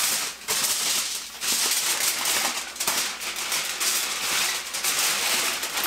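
Aluminum foil crinkling almost continuously as it is folded and pressed tight around a piece of ribs, with two short breaks in the first second and a half.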